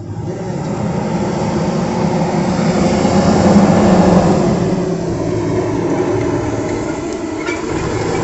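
A loud vehicle passing with a steady low hum, swelling to a peak about four seconds in and then easing.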